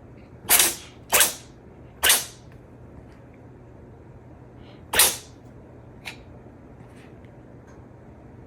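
Norwegian Forest Cat sneezing: four sharp sneezes, three in quick succession and a fourth about three seconds later, followed by a faint fifth.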